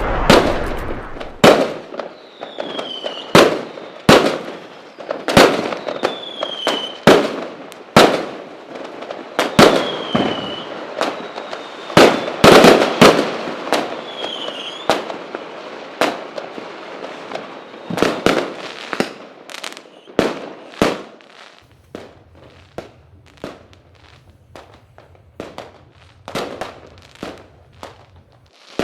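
Fireworks going off: repeated sharp bangs with crackling tails, and in the first half several short whistles that fall in pitch just before a bang. In the second half the bangs turn into quicker, smaller cracks over a low steady hum.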